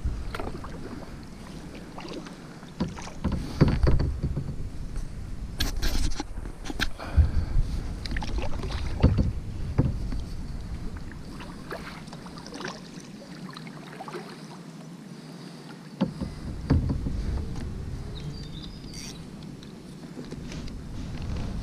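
Irregular knocks and clunks of an angler moving and casting in a canoe, over a low rumble that drops out for a few seconds in the middle.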